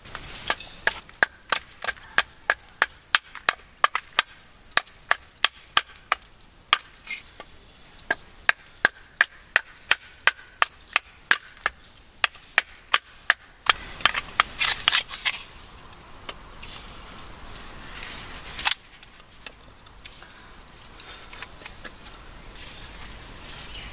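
A nata (Japanese hatchet) chopping into an upright piece of wood set on a wooden stump, about two sharp strikes a second. After about 14 seconds the chopping stops, and a hand auger is turned into a log with a quieter steady grinding and one knock.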